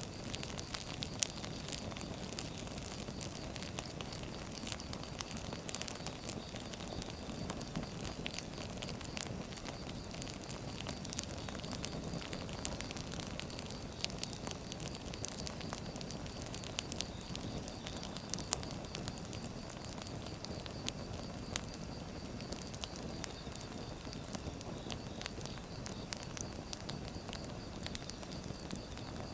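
Wood fire burning: a steady low rushing of the flames with frequent irregular sharp crackles and pops of the logs.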